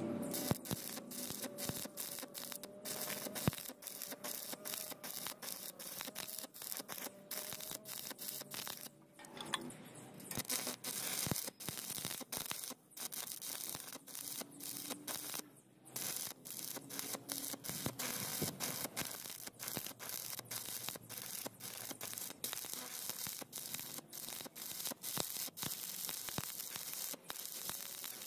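Stick (electric arc) welding a root pass on a steel tube joint: the arc crackles and sizzles steadily, broken by many brief drops where the arc breaks and restrikes.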